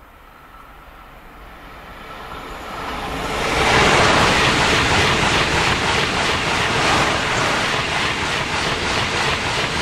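OUIGO double-deck TGV high-speed train passing close beneath: the rush of wheels on rail and air swells over about two seconds, then holds loud and steady as the carriages go by.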